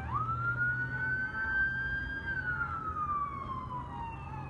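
Police patrol car siren sounding a wail: the tone climbs quickly near the start, holds high for about two seconds, then falls slowly.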